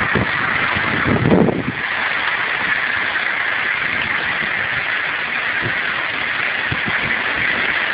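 Steady rushing noise of street traffic and wind, with a short, louder low rumble about a second in.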